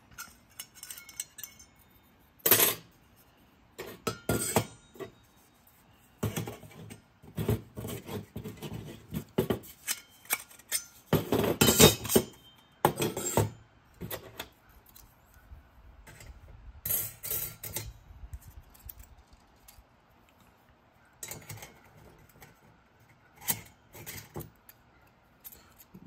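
Titanium twig stove sections clinking and knocking together as they are stacked and fitted, with the pot-support plate slotted in on top. The metal-on-metal clinks come irregularly, with a louder run of them about halfway through.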